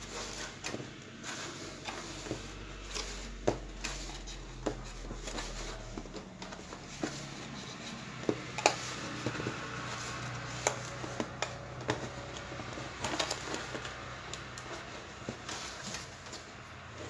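Hands fitting a speaker voice coil with thin card shims into the magnet gap of a bass speaker: scattered light clicks, taps and paper rustles as the shims and coil former are pressed into place, over a faint steady low hum.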